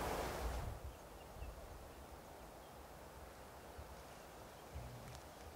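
Quiet open-air ambience with a faint low rumble, like light wind on the microphone. A louder rush of noise fades out within the first second.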